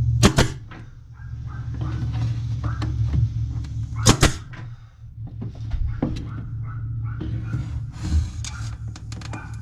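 Pneumatic nail gun firing twice, about four seconds apart, each shot a sharp crack as it drives a nail into trim, with softer handling knocks and a few light clicks near the end.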